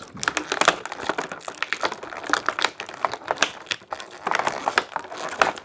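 Thin clear plastic blister tray crackling and clicking as small toy parts are pried out of it by hand, in two busy spells of rapid crackles.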